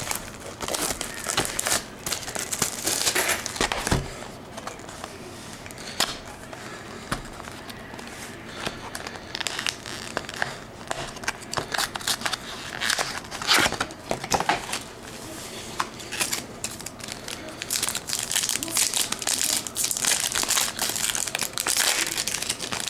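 Packaging of trading-card packs being crinkled and torn open by hand, in irregular bursts with quieter stretches between.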